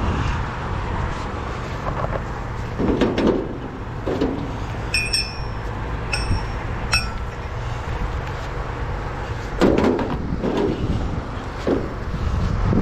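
Scattered knocks and clanks from hands working on a sheet-metal sign structure, with a couple of short metallic pings around the middle, over a steady low rumble.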